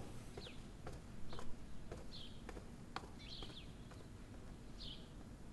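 Quiet room ambience with about five short, high bird chirps spread through it and a few soft taps, like light footsteps.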